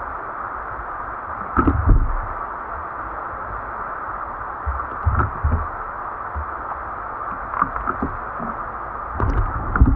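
Rushing river water, a steady hiss, with a few short low bumps about two seconds in, around five seconds, and just before the end.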